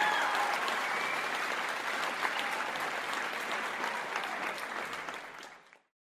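Crowd applause, a dense patter of many hands clapping, with a few voices fading out near the start; the clapping thins and fades out about five seconds in, ending in silence.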